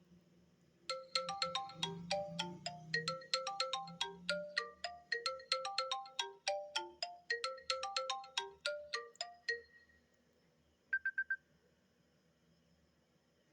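iPad mini 4 ringtone playing through the tablet's speaker: a quick melody of short plucked, bell-like notes that runs for about nine seconds and then stops. A second or so later a different ringtone starts with four fast high beeps.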